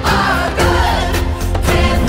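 Upbeat Christian worship pop song: voices singing over a backing track with a steady beat.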